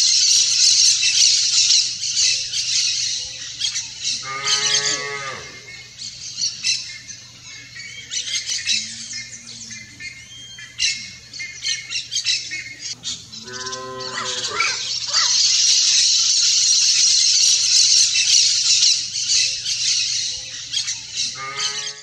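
Turquoise-fronted parrots giving harsh squawks over a steady high-pitched buzz. A cow moos twice, each moo a long low call, about four seconds in and again near fourteen seconds, and a third moo starts right at the end.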